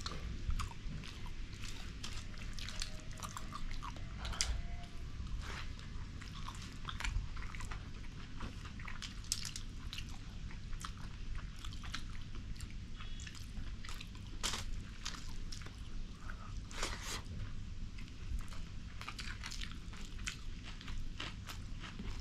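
Mukbang eating sounds from king fish curry and rice: chewing, with many short irregular clicks throughout, over a steady low hum.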